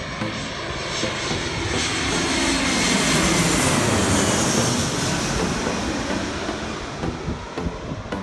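Twin-engine jet airliner passing low overhead. The engine noise swells to a peak about halfway through, its whine falling in pitch as the plane goes over, then fades away.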